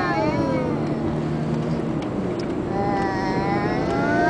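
Steady road and engine noise inside an Audi A6 Quattro's cabin while it drives. A high, wavering wordless cry, sliding up and down in pitch, fades out at the start and comes in again about three seconds in.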